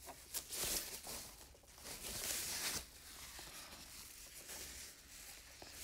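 Rustling of a sheet of foam packing wrap and the packaging being handled as a keyboard PC is lifted out of its box, in two short bursts: about half a second in and again around two seconds in.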